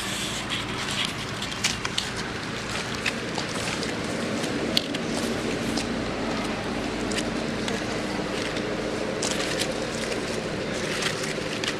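Dry leaf litter crackling and clicking in scattered bursts, over a steady low hum; the clicks come more often near the end.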